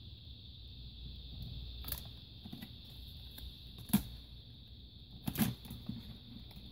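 Small plastic clicks and taps as an HP Pavilion DV6 laptop keyboard is handled and its flat ribbon cable is worked into the connector: a few sharp clicks, the loudest about four and five and a half seconds in, over a steady faint high hiss.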